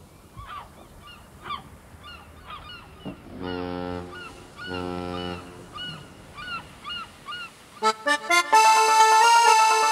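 Gulls calling in repeated short cries, with two longer honking calls in the middle. About eight seconds in, the song's accordion comes in with a quick run of rising notes and then held chords, louder than the birds.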